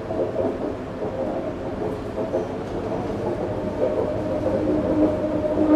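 Detroit People Mover car running along its track, heard from on board: a steady rumble with a motor hum that grows louder and steadier over the last couple of seconds.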